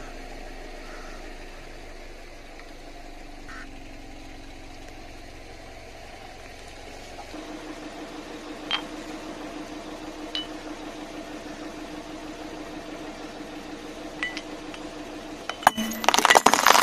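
Car engine idling with a steady hum and a few faint clinks, then, about a second before the end, glass light bulbs cracking and crunching under the car's tyre in a loud burst of crackles.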